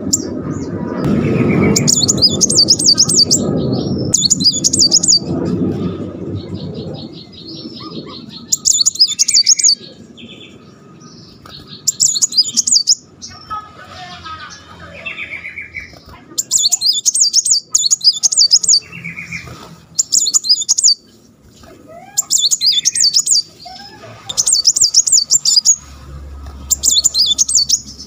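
Male sunbird singing rapid, very high rolling trills, the fast 'tembakan' bursts prized by Indonesian bird keepers, each about a second long, about ten in all with short gaps, mixed with a few lower chirps. A low rushing noise runs under the first several seconds.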